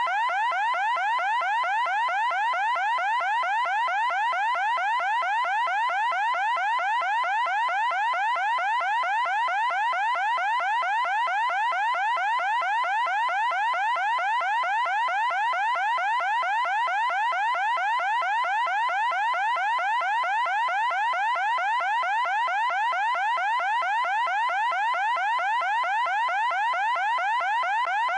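Loud electronic alarm sounding continuously, a rapid warble of short rising sweeps repeating several times a second without a break.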